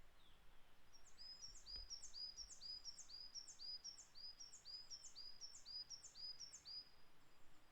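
Coal tit singing: a high, quick two-note phrase repeated about a dozen times in a steady run, starting about a second in.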